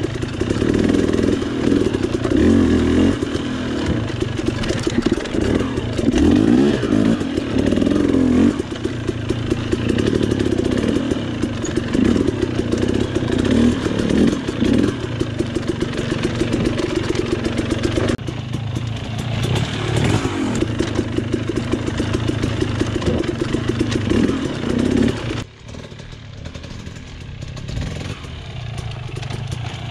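Dirt bike engine revving up and down as the bike climbs a rough, rocky trail, heard up close from the rider. About 25 seconds in it turns suddenly quieter and more distant, then slowly grows louder again as the bike approaches.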